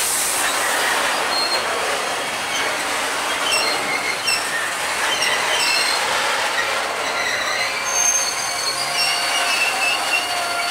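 Freight train of Talbot-type self-discharging hopper wagons rolling past, the wheels rumbling steadily on the rails. Short high-pitched squeals from the running gear come and go from about a third of the way in, more often near the end.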